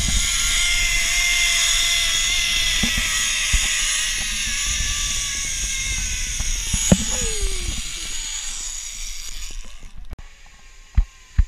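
Zipline trolley pulleys whining along the steel cable, with wind rushing over the microphone. The whine slides slowly down in pitch and fades as the rider slows toward the landing platform, dying away about ten seconds in, followed by a sharp knock near the end.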